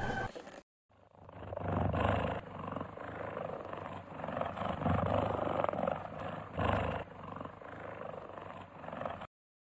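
A big cat growling and roaring in a series of rough swells, the strongest about 2, 5 and 7 seconds in, starting and stopping abruptly.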